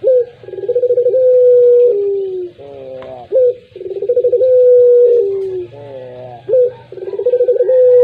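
Puter pelung ringneck dove cooing over and over, about every three seconds. Each coo opens with a quick rolling stutter, holds a long steady note, then drops to a lower one, followed by a short falling run of notes.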